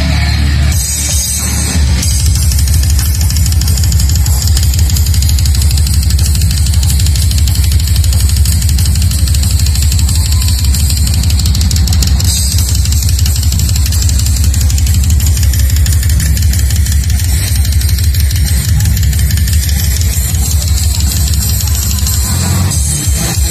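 Brutal death metal band playing live at high volume: heavy down-tuned guitars and bass with fast, dense drumming.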